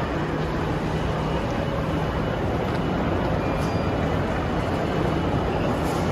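Steady background rumble and hiss with a constant low hum and no distinct events.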